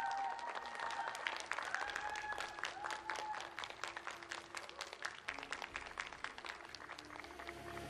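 Small audience clapping after a performance, the applause thinning out toward the end.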